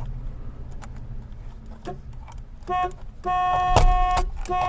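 Car horn of a 1994 Chevrolet Cavalier Z24 sounding in short blasts as the horn pad is pushed back onto the steering wheel, its contact closing while it seats: a brief honk, a longer one of about a second, then another near the end. Before the honks come a few clicks from the pad being pressed.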